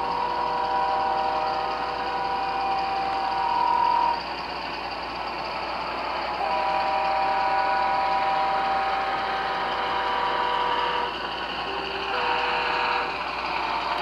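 Sound decoder in an HO scale Rapido ALCO FA-2 model locomotive playing a multi-chime diesel air horn through its small speaker. A long blast ends about four seconds in and another runs from about six to eleven seconds in, then two short blasts follow near the end, over steady running noise.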